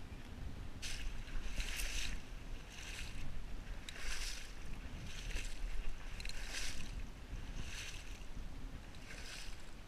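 Splashing steps of someone wading through shallow marsh water, about one a second, over a steady low rumble of wind on the microphone.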